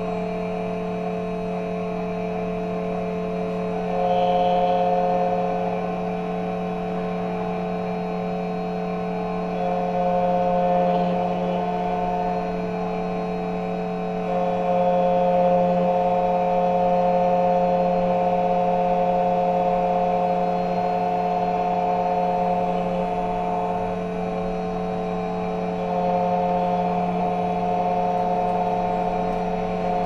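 Xtool KNC91 key cutting machine running, its spindle giving a steady whine as it cuts a Suzuki car key. The whine gets louder for several stretches of a few seconds at a time.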